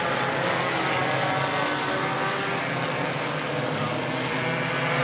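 Engines of several mini stock race cars running together at racing speed, a steady blend of overlapping engine notes.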